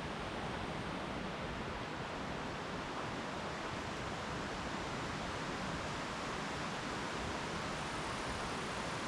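Mountain stream babbling steadily, a continuous even rush of running water.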